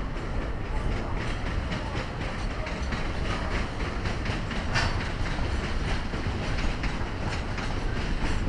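Train rolling past, a steady low rumble with a continuous run of wheel clicks over the rail joints.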